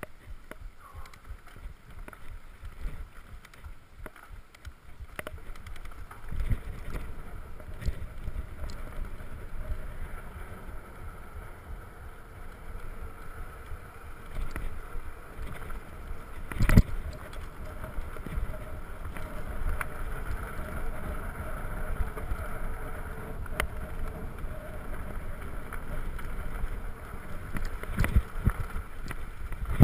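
Surly Krampus mountain bike riding a rough, sandy trail, heard from a camera mounted on the bike: a steady rumble and rattle from the tyres and frame, with wind on the microphone and scattered sharp knocks, the loudest about 17 seconds in.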